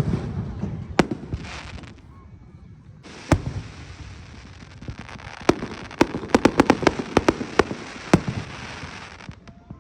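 Fireworks bursting: a single bang about a second in and another about three seconds in, then a rapid run of many sharp bangs from about five to eight seconds in.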